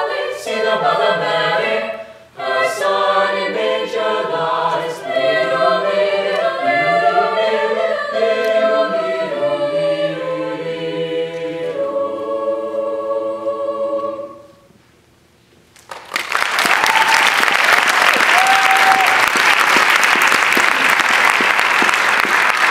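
A mixed chamber choir singing in several-part harmony, closing on a held chord that fades away about fourteen seconds in. After a short silence, an audience applauds.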